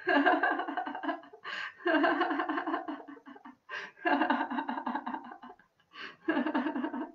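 A woman laughing in a laughter yoga exercise: four bouts of quick ha-ha pulses, each broken off by a sharp in-breath.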